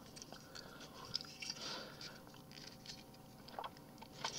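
Faint handling of small plastic toy parts in the fingers: scattered light clicks and rubs, with a couple of sharper clicks near the end.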